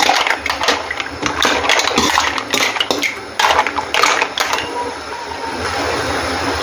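A metal spoon stirring green mussels in an aluminium wok: shells clattering against each other and against the pan, with the spoon scraping, over a steady hiss. The clatter stops about four and a half seconds in.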